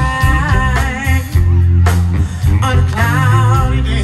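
Live band playing a Motown song with sung vocals over a heavy bass line and drums.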